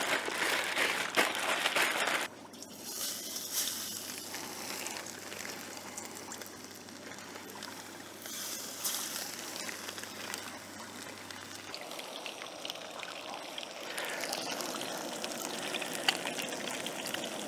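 A plastic bag crinkling as crappie fillets are shaken in seasoning, then, from about two seconds in, fish fillets sizzling steadily in hot oil in a camping frying pan.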